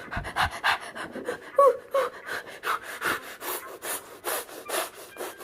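A person panting rapidly through the mouth, about four quick breaths a second, with a couple of short voiced huffs about one and a half seconds in.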